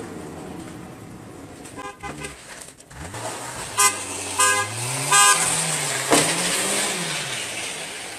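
Car horn honked in three short toots about a second apart, over a car engine whose revs rise. A single sharp knock follows shortly after.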